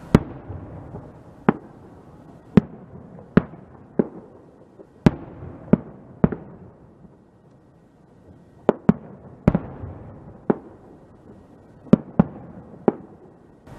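Aerial firework shells bursting in a string of about fifteen sharp bangs at irregular intervals, some in quick pairs, each trailing off in a rumbling echo. There is a lull of a couple of seconds about halfway through.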